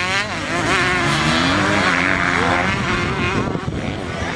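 Motocross bike engines racing on a dirt track, several at once, their pitch climbing and dropping as the riders open and close the throttle.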